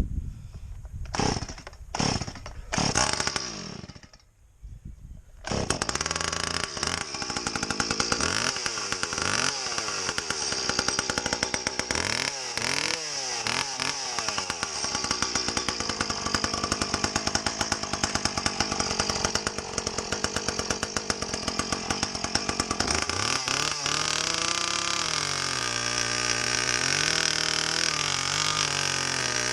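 Stihl MS170 two-stroke chainsaw with a home-made exhaust pipe being pull-started: about four pulls of the starter cord, then it catches and runs, revving up and down, before settling into a lower, uneven idle that wanders in pitch. It is running badly, which the owner puts down to the air filter starving the engine of air.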